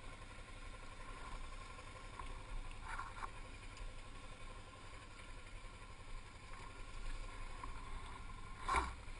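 Motorcycle ride: a steady low rumble of engine and wind noise, with brief knocks about three seconds in and again near the end.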